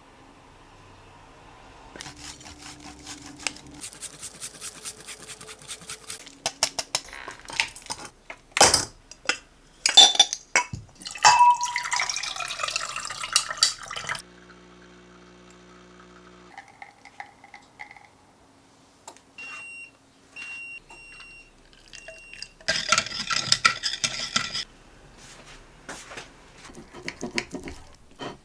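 Kitchen handling sounds: dishes and utensils clattering and clinking, with water running for a few seconds, then four short high electronic beeps from an appliance's buttons.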